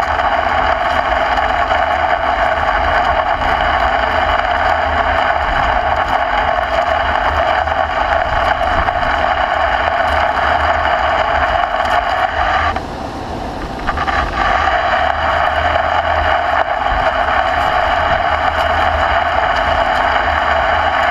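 American Pacemaker 20x192 engine lathe turning a large hydraulic cylinder while a TPG 432 carbide insert cuts a weld bevel. A steady machining noise runs over the low hum of the lathe's drive, and the cutting sound drops away for about a second a little past halfway.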